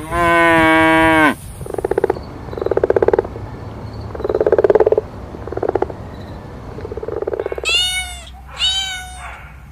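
A cow's moo ends with a falling pitch, followed by about five low, rasping, pulsed croaking calls roughly a second apart, then a cat meowing twice near the end.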